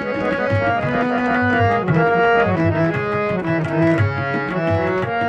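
Harmonium playing a melody of held reed notes, with tabla keeping the rhythm in deep bass strokes and sharp treble strokes: an instrumental interlude between sung verses of a bhajan.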